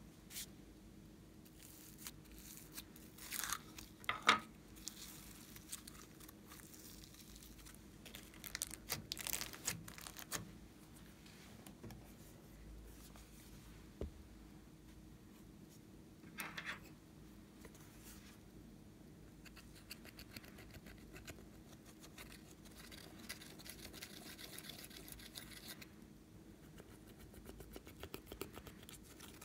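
Faint handling sounds: a few short knocks and rustles as a plastic eyeshadow palette is moved about, and a soft, scratchy scraping as a small metal tool digs pressed eyeshadow powder out of its pans.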